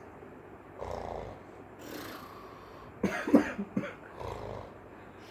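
A three-month-old baby snoring, several rough, noisy breaths, with a louder cluster of short, rough sounds about three seconds in.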